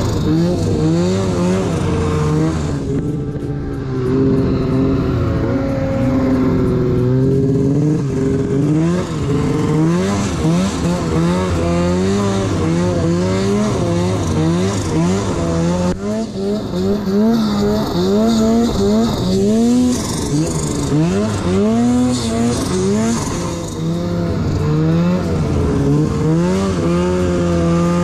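Arctic Cat Alpha One snowmobile's two-stroke engine revving under load through deep powder, its pitch rising and falling again and again as the throttle is worked.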